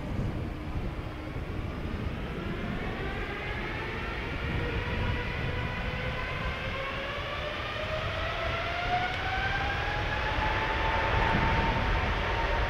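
Jet airliner's turbofan engines spooling up: a whine with several tones that rises slowly and steadily in pitch and levels off near the end, growing louder over a low rumble.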